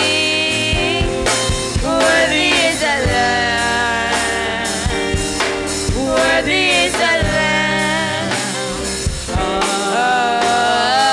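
Live gospel praise-and-worship music: women's voices singing long, gliding held notes into microphones, backed by a band with a drum kit.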